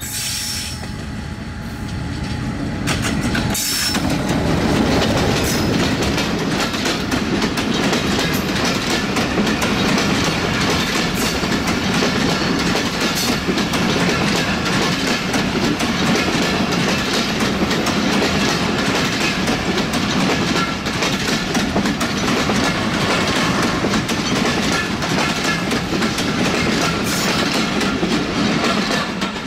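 Intercity passenger train hauled by an ALCO WDM-3A diesel locomotive passing close by. Its sound grows sharply louder about three and a half seconds in as the locomotive goes past, then holds as a long, steady clatter of coach wheels on the track.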